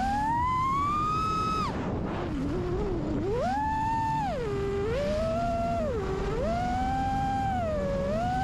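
Brushless motors of a 5-inch FPV quadcopter (iFlight Xing2 2306 2555Kv) spinning tri-blade props, a whine that climbs and falls with the throttle: it rises, cuts off sharply a little under two seconds in, then swells and drops back several times. Heard from the onboard camera, with wind rush underneath.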